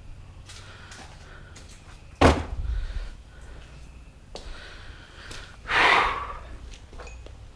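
Workshop handling noises during engine disassembly: a sharp, heavy knock about two seconds in, a lighter tap a couple of seconds later, and a short rushing burst near the end.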